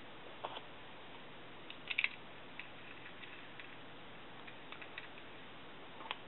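Sparse small clicks and taps of a Mini Maglite flashlight's head parts being handled and fitted back together, with a cluster of two or three clicks about two seconds in, over a faint steady hiss.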